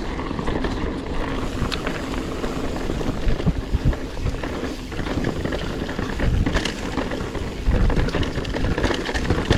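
Mountain bike (a Specialized Stumpjumper Evo Alloy with a Fox 38 fork) descending rough, rocky singletrack: tyres rumbling over rock, with a stream of knocks and rattles from the bike and wind buffeting the microphone. There are heavier hits about three to four seconds in and again near the end.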